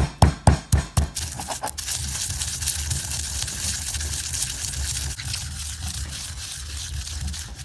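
Pestle pounding hot roasted whole spices in a mortar: a quick run of knocks in the first two seconds, then a steady grinding rasp as the spices are crushed to powder.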